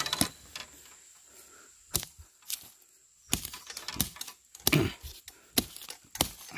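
Short, wooden-handled knife chopping into the base of a bamboo shoot in the ground. It gives about seven sharp, irregular cracks from about two seconds in, as the shoot is cut free for harvesting.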